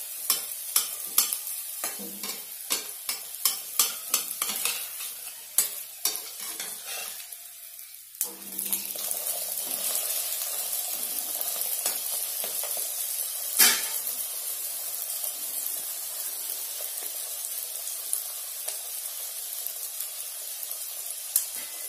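Egg-stuffed paratha sizzling as it shallow-fries in oil in a kadai, with a metal spatula clicking and scraping against the pan many times in the first seven seconds. After about eight seconds the sizzle runs steadier, with one louder knock near the middle.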